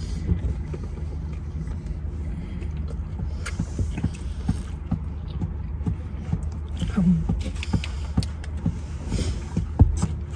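Close-up chewing and mouth sounds of eating a fried chicken sandwich, with small clicks and knocks throughout, over the car's steady low hum. Near the end there is a brief crinkle of the foil-lined sandwich bag.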